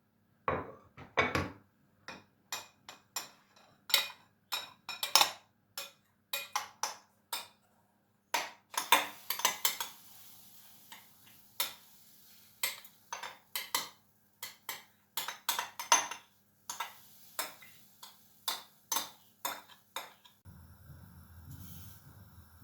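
Kitchen utensil clinking and tapping against a dish, an irregular series of sharp clinks about two a second. Near the end the clinks stop and a steady low hum takes over.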